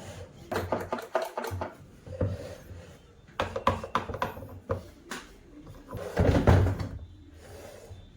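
Knocks and clatter of hard parts of a Kärcher NT 35/1 Ap vacuum cleaner being handled, in several short clusters, with a heavier bump about six seconds in.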